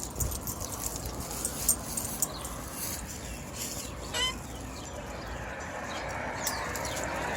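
Small metallic clicks and jingles of a dog's tags and leash on a walk, with a short animal call about four seconds in and a rising rush of noise near the end.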